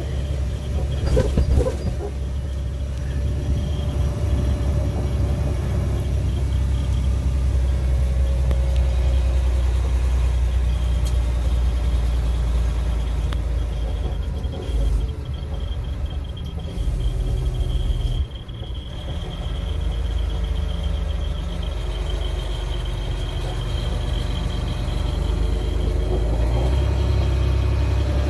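Fire engine driving, heard from inside its cab: a steady low engine and road rumble. The sound drops briefly twice, about 15 and 18 seconds in.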